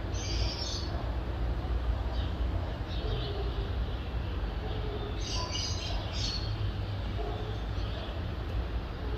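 Birds chirping, with the clearest calls just after the start and again about five to six seconds in, over a steady low rumble of city traffic.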